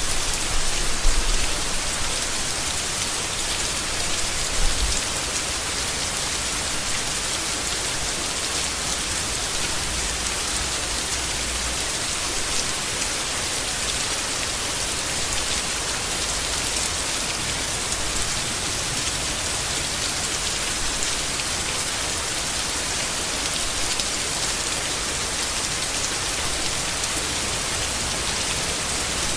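Steady heavy rain falling on leaves, a dense even hiss of drops, with a low rumble underneath during the first several seconds.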